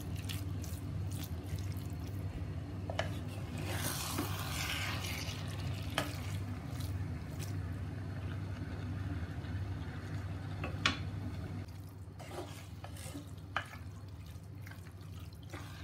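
A spatula stirring and scraping a thick, wet chicken keema mixture in a handi, with scattered sharp clicks and taps of the spatula against the pot. A steady low hum runs underneath.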